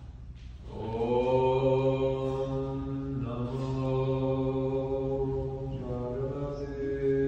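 A voice chanting a Sanskrit verse in long, held notes, beginning just under a second in and stepping to a new pitch about three seconds in and again about six seconds in.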